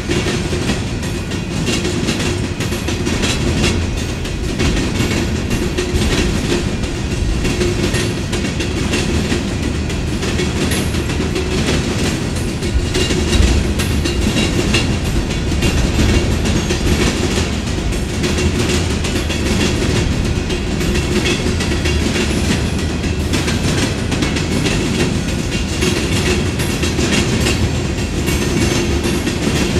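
Empty rock hopper cars of a freight train rolling past, their steel wheels clattering steadily over the track and the crossing diamonds.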